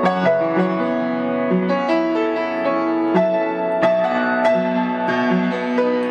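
Solo piano playing a slow melody over held chords, notes struck about every half second.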